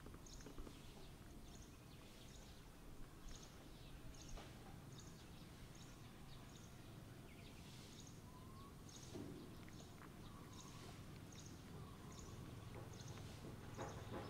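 Quiet outdoor ambience: a faint low background hum with a short, high chirp repeating about once a second, and a couple of faint whistles about midway.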